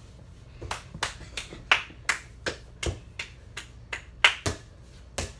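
Basketball dribbled on a hard indoor floor: a run of sharp bounces, about three a second, some harder than others.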